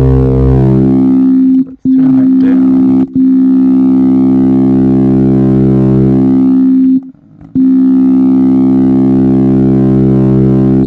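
FM-synthesised tone from Ableton's Operator synth, held at one steady pitch and rich in overtones. It cuts out briefly three times: just before 2 seconds in, just after 3 seconds, and for about half a second around 7 seconds in, then resumes.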